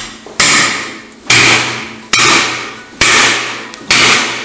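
Metal-on-metal hammer blows: the spit's steel weight is swung as a hammer to drive a four-prong spit fork into a pig carcass. There are about five blows roughly a second apart, one of them lighter, and each rings out and fades.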